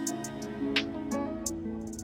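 Background music: a gentle plucked-string melody stepping through held notes, with short sharp ticks over it.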